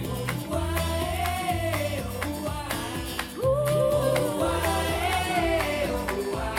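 Pop song played back through a pair of small powered desktop speakers and picked up by a recorder's microphone: a sung melody with long held notes over a stepping bass line and steady drum ticks.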